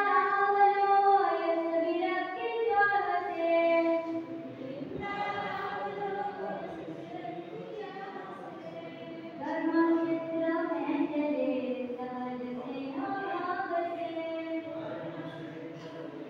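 Unaccompanied group singing by many young voices together, in long drawn-out phrases that glide between notes; loudest at the start and again about ten seconds in.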